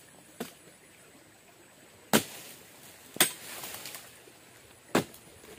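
Harvesting blade chopping into an oil palm: four sharp hits, a faint one near the start and louder ones about two, three and five seconds in, the one at three seconds followed by a short rustle.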